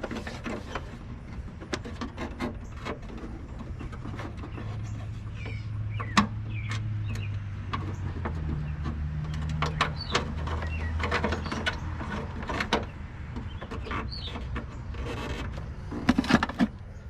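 Scattered metal clicks and knocks as a car horn and its bracket are worked back into place by hand, lining up the mounting pin. A low steady hum sits underneath from about four to eleven seconds in.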